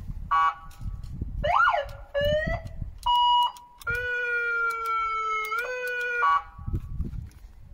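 Aftermarket electronic siren switched through several of its tones in turn: a short beep, a quick rising-and-falling whoop, a stepped rising run of notes, then a steady high note and a long held tone that jumps up in pitch once before cutting off.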